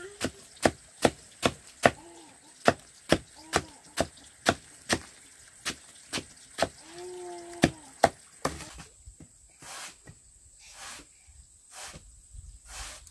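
A cleaver chopping a banana stem on a wooden block: sharp chops about two or three a second, stopping about eight seconds in. Fainter, irregular knocks follow.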